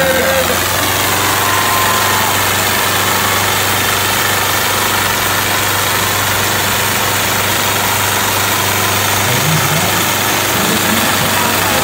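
Swaraj 735 and John Deere diesel tractors chained back to back in a tug-of-war, both engines running under heavy pulling load with a loud, steady drone.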